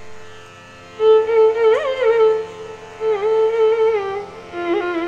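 Carnatic-style instrumental background music: a melody instrument playing sliding, bending notes over a steady drone, the melody coming in about a second in.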